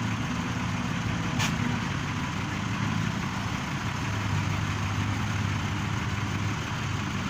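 Heavy machinery diesel engine running steadily at a low, even speed, with one short click about a second and a half in.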